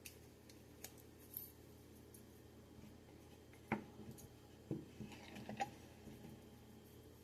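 Faint metal-on-metal scraping and clicking as the small file of a Gerber Dime multi-tool is worked against an old razor blade to rub off rust. A sharper click comes about three and a half seconds in, and a short run of scrapes and clicks follows a second later.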